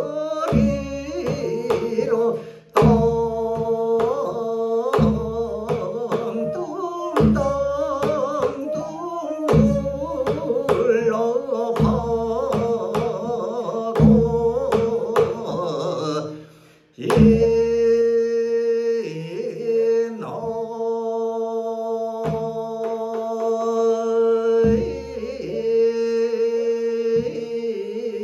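Korean traditional vocal music: a sijo singer's voice with daegeum bamboo flute and janggu hourglass-drum accompaniment. Deep janggu strokes fall about every two seconds through the first half; a little past halfway the music drops away briefly, then comes back on long held notes.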